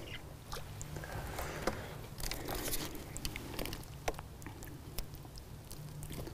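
Faint, scattered small clicks, crackles and rustles of hands handling a fishing pole and its line close to the microphone, over a low steady hum.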